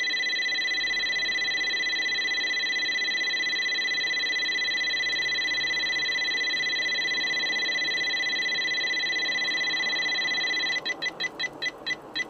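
Escort Max radar and laser detector sounding a steady, high, continuous alert tone, the sign of a laser signal from the Poliscan speed camera being picked up. Near the end the tone breaks into rapid beeps, about five a second.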